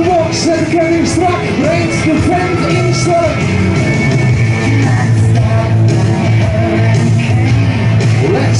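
Rock song with a singer playing loudly over a public-address loudspeaker system. A steady low drone comes in underneath about halfway through.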